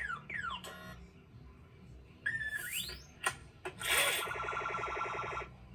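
Cartoon-style whistle sound effects: whistles slide down in pitch near the start, then one slides up a little after two seconds. About four seconds in comes a buzzy, evenly pulsing sound that lasts about a second and a half.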